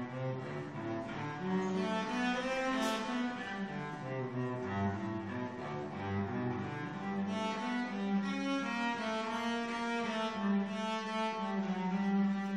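Solo cello played with the bow: a melody of sustained notes that change every second or so, ending on a long held note.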